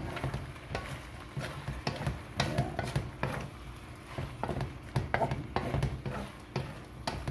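A spatula clattering and scraping against a wok as shrimp are stir-fried: irregular knocks, several a second.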